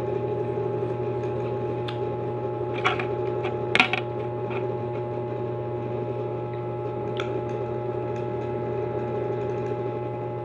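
Eating cucumber slices: a few short crunches and clicks, the loudest about four seconds in, over a steady hum.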